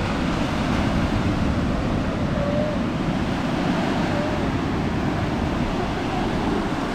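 Steady wind buffeting the microphone over the wash of sea surf on a beach.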